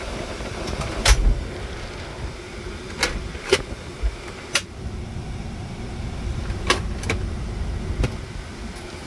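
Irregular sharp clicks and knocks, about seven in nine seconds, over a low steady rumble, the kind of sounds heard while a car is being gone over.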